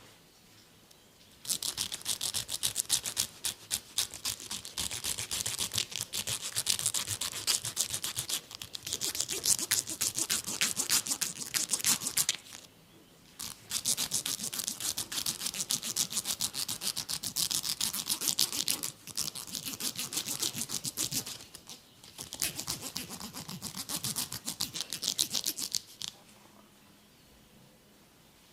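Fingers rapidly scratching and rubbing a scalp through the hair, a fast, dense scratching. It comes in three long spells with short pauses between them.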